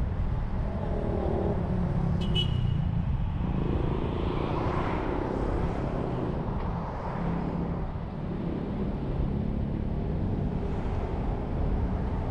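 City traffic and the car's own engine and tyre noise, picked up by a camera mounted on the outside of the moving car: a steady low rumble, with a short high squeak about two seconds in and a swell of noise around five seconds in.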